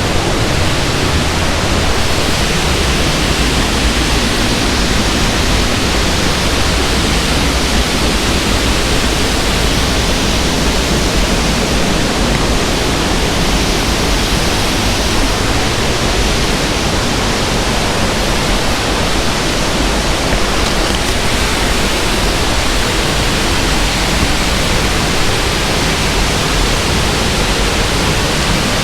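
Waterfall rushing: a loud, steady noise of falling water that does not change.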